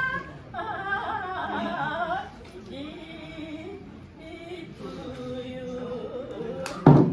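Women singing an Okinawan usudeku ritual song in unison, in short phrases with brief pauses. Near the end comes a single loud, sharp stroke on a small hand drum.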